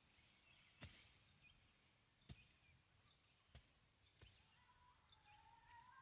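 Near silence: faint outdoor ambience with a few soft, sharp clicks spread through it and some faint, high, bird-like chirps; a faint steady tone comes in near the end.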